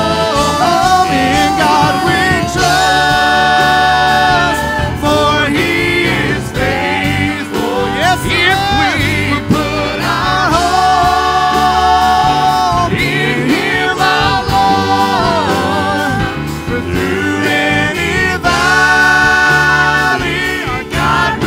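Live church worship band: several singers in harmony holding long sung notes over keyboard and percussion accompaniment.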